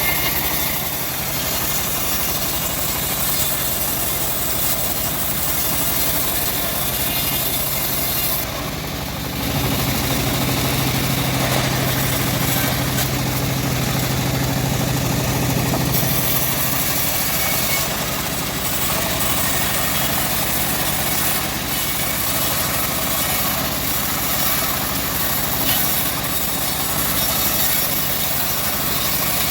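A homemade engine-driven bandsaw running steadily while sawing an old mahogany log. Its engine note deepens and steadies from about ten to sixteen seconds in.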